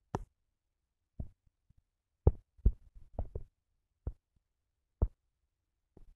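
Finger taps typing on a phone's touchscreen keyboard: about nine short, sharp clicks at an uneven pace.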